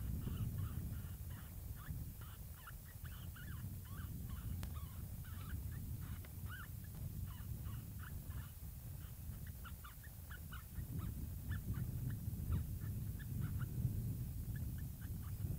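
Many short, high yips and chirps in quick runs, like an animal yipping or chattering, over a steady low rumble.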